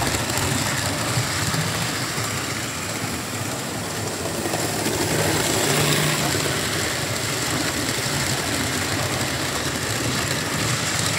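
Model Class 47 locomotive and its Mk3 coaches running on the layout's track: a steady electric motor and the rumble of wheels on rail, with a faint high whine.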